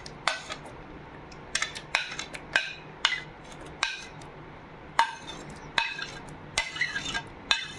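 About a dozen irregular clinks and taps of a plate and utensil against a stainless-steel mixer-grinder jar as soft muskmelon chunks are scraped in, each with a brief metallic ring.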